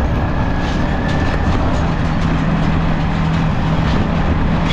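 Yamaha XSR155's single-cylinder engine running steadily under way, mixed with road and wind noise; a steady low drone comes in about a second and a half in.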